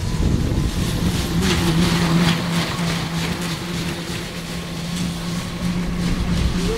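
Battery-electric snowmobiles running down a snow drag strip: track noise with scattered clatter and a steady low hum, with wind buffeting the microphone.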